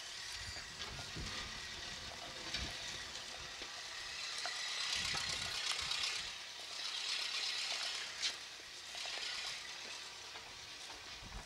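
Outdoor ambience: a steady high hiss that swells louder through the middle and eases off again, with low wind rumble on the microphone in the first seconds and a few faint ticks.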